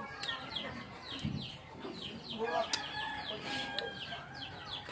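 Chickens calling nearby: a run of short, high, falling chirps, several a second.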